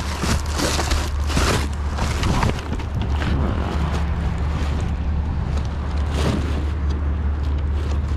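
Steady low rumble, with rustling and clattering of trash being handled in a dumpster during the first couple of seconds.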